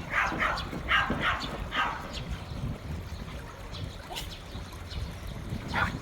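A series of short animal calls, about two a second for the first two seconds, then one more call near the end.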